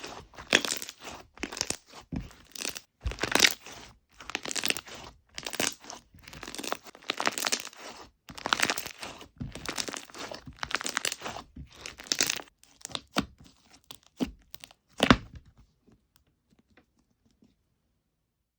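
Soft slime being squeezed and stretched by hand, giving short crackly bursts about once a second that stop near the end.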